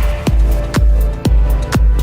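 Electronic dance music with a heavy bass and a kick drum on a steady beat, about two beats a second.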